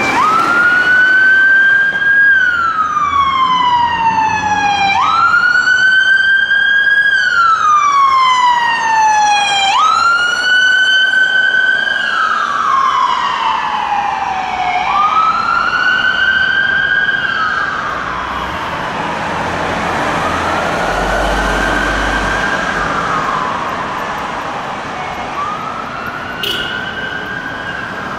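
Whelen electronic siren on a responding fire department vehicle, sounding a wail: each cycle jumps up quickly and then slides slowly down, repeating about every five seconds. It grows fainter over the last third as the vehicle moves off.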